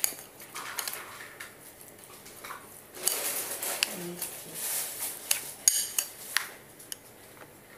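Spoon stirring a thick peanut sauce in a ceramic bowl, scraping and clinking against the bowl in short bouts, with one brief ringing clink a little before six seconds in.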